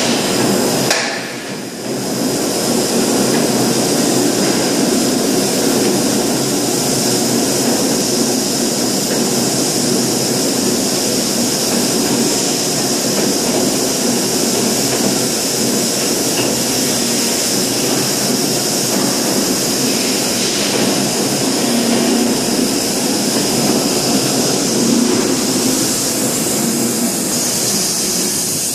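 Steady industrial machinery noise of a plastic drum blow-molding line running, with a constant high whine over it; the noise dips briefly about a second in.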